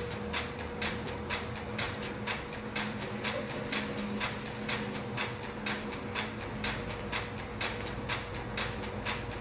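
Joseph Newman's energy machine running off solar panels, its large disc rotor spinning: an even clicking about twice a second over a steady hum.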